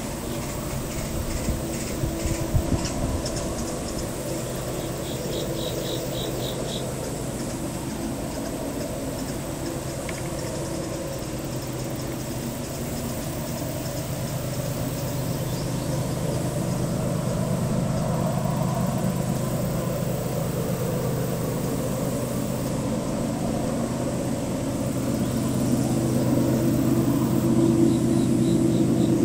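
Distant GE Evolution-series (GEVO) diesel locomotive working hard as the train pulls away, a steady low chugging drone that grows louder over the last few seconds. Insects chirp briefly twice.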